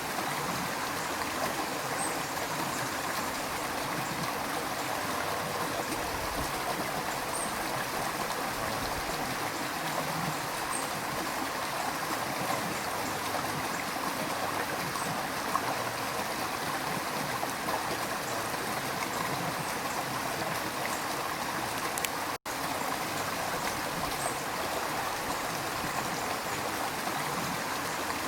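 River water rushing and gurgling steadily. It cuts out for an instant about 22 seconds in.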